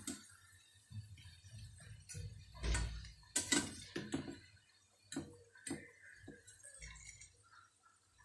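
Scattered light clinks and taps of a steel spoon against a steel frying pan and plate as fried onion pakoda are lifted from the oil and set down on paper towel.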